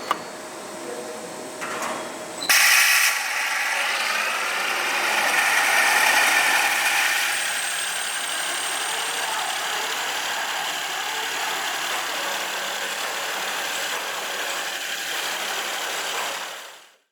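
CNC bridge saw's polishing head working a stone slab. A lower machine noise gives way, about two and a half seconds in, to a sudden loud start with a brief wavering whine, then a steady grinding hiss that fades out at the end.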